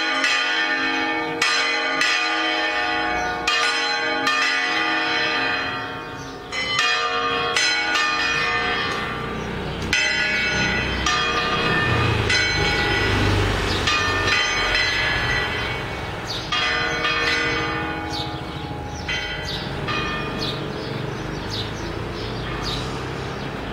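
The church tower's bells swinging full circle (a Spanish volteo), their clappers striking in a fast, overlapping peal with long ringing tones. The strikes thin out in the second half, and a low rumble sits under them from about halfway.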